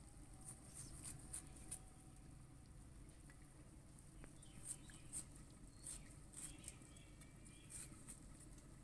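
Near silence broken by faint sharp clicks as small fish are cut on a boti blade. A faint high-pitched animal call comes about two-thirds of the way in.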